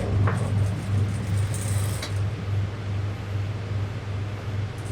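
Sewing machine running with a steady low hum and a slight pulsing.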